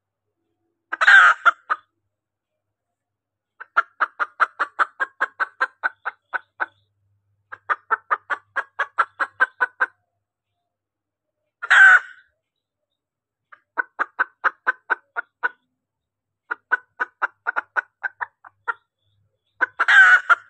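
Junglefowl hen calling: runs of quick clucks, about six or seven a second, broken by three short, harsh, louder calls near the start, midway and at the end. It is a hen's call to draw in cock birds.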